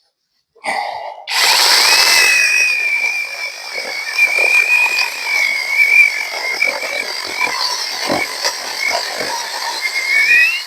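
Battery-powered chainsaw spinning up about a second in and cutting through a thick log section, its motor whine steady under load with the chain chewing through wood. Near the end the pitch rises as the cut finishes, then it stops.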